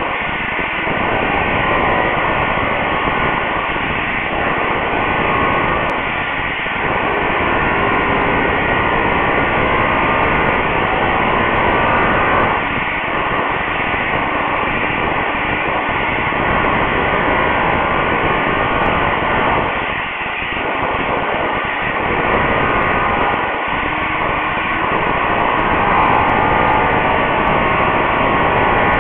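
An electric power tool runs steadily while floor tiles are broken up, a loud, even noise with a few brief dips.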